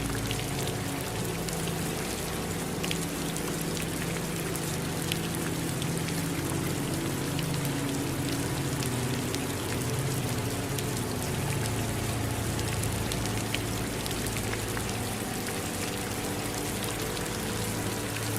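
Steady rain falling, with the ticks of single drops striking close by, over a low steady rumble.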